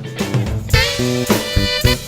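Background swing-style jazz music with horns, getting louder and brighter about two-thirds of a second in.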